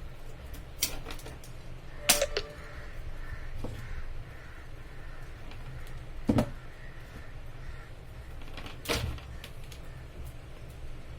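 A crow cawing a few times, over small clicks and rustles of a network cable and tools being handled, with a steady low hum underneath.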